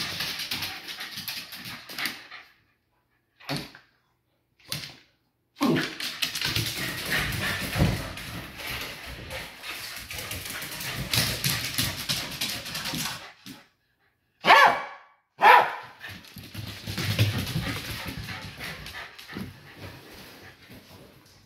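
Small dog barking in short bouts, the two loudest barks coming about a second apart a little after the middle.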